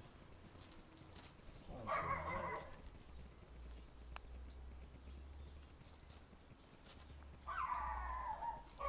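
A dog whimpering briefly, twice: about two seconds in and again near the end, over a steady low rumble.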